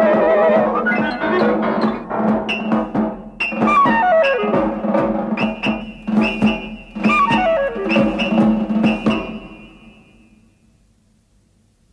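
Cartoon soundtrack music: percussion strikes over a held low note, with two falling slides in pitch, fading out near the end.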